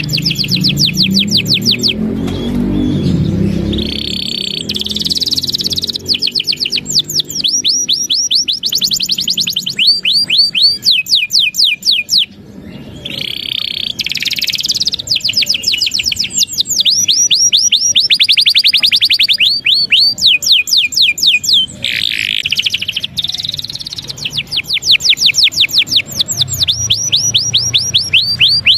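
Domestic canary in full song: long phrases of fast rolling trills, each a rapid run of repeated sweeping notes, broken now and then by short pauses.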